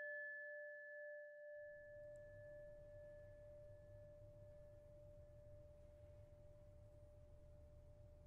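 The ringing tail of a struck bell-like chime, decaying with a slow wobble. Its higher tone dies away over the first few seconds while a lower, steady tone rings on faintly. A faint low rumble comes in about a second and a half in.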